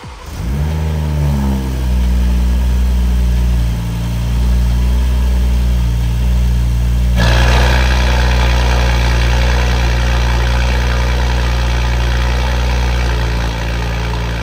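A 2022 BMW M340i's B58 turbocharged inline-six starts up through a freshly installed Tactic Motorsports stainless valved cat-back exhaust. The revs flare for about a second, then settle into a steady, loud idle. About halfway through, a rushing hiss suddenly joins in over the idle.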